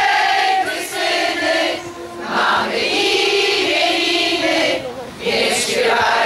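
A crowd of women singing together in sung phrases with held notes, broken by short pauses about two and five seconds in.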